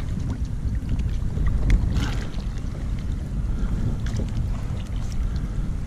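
Wind rumbling across the microphone, with scattered light clicks and knocks, the loudest a little under two seconds in.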